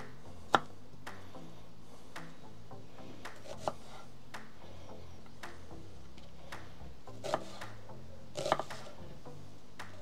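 Kitchen knife slicing an onion into half-rings on an end-grain wooden cutting board: the blade knocks on the board roughly once a second, loudest about half a second in, with a quick cluster of cuts near the end. Soft background music plays underneath.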